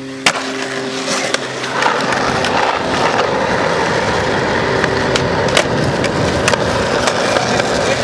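Skateboard wheels rolling over rough asphalt, a steady gritty rumble that grows louder about two seconds in, broken by sharp clacks of the board hitting the ground, the first just after the start as the board lands off a ledge.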